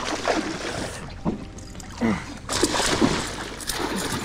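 Water splashing and sloshing beside a kayak as a hooked musky is fought close in, with louder bursts of splashing about halfway through and again near the end.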